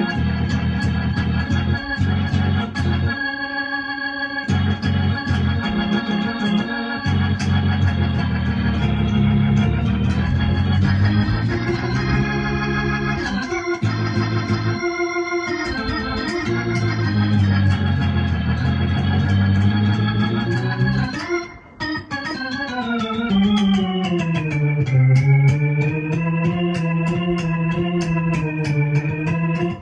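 Gospel-style organ chords played on an electronic keyboard, held and changing. About two-thirds of the way in, the sound briefly drops out. Then the whole chord slides down in pitch and wavers up and down.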